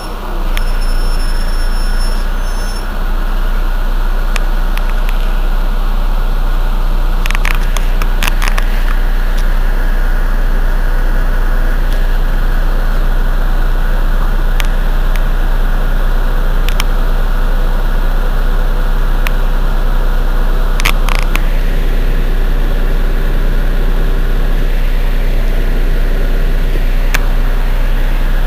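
Heuliez GX 127 city bus's diesel engine running steadily at a constant pitch, with a few sharp clicks about seven to nine seconds in and again around twenty-one seconds.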